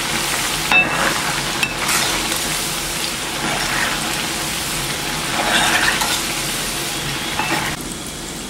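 Small pieces of shankarpale dough deep-frying in hot oil in a kadhai, a steady bubbling sizzle of oil at medium-high heat, while a steel skimmer stirs through them.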